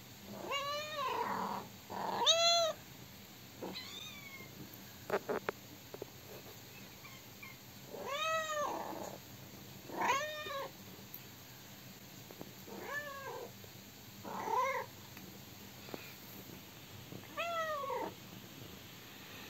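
Kitten of about five weeks meowing over and over: about eight separate high-pitched meows, each rising then falling, with short pauses between. A few sharp clicks come about five seconds in.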